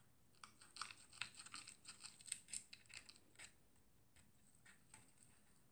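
Faint scraping snicks of a utility knife blade cutting cardboard, a quick run of short strokes over about three seconds that then tails off to a couple of light ticks.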